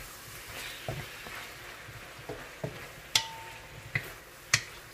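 Eggplant sautéing in a pan, a steady sizzle, while a utensil stirs it and knocks against the pan about half a dozen times. One knock about three seconds in leaves a short metallic ring.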